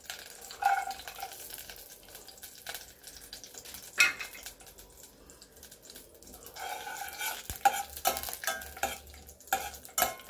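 Cashews and raisins tipped into hot ghee in a stainless steel pot, sizzling as a steel ladle stirs and scrapes against the pot. There is a sharp knock about four seconds in, and a run of quick clicks and scrapes near the end.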